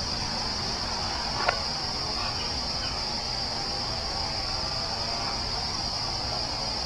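Forest ambience: a steady high-pitched drone of insects over a low rumble. One short, sharp click-like sound stands out about one and a half seconds in.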